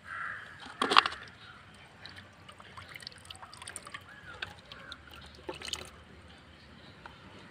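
Water sloshing in a plastic bucket as cut plastic-bottle fish traps are moved about in it, with a loud sharp clatter about a second in and scattered light clicks of the plastic bottles.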